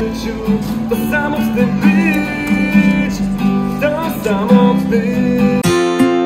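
Street busker strumming an acoustic guitar and singing. Near the end it gives way to a different strummed guitar music track.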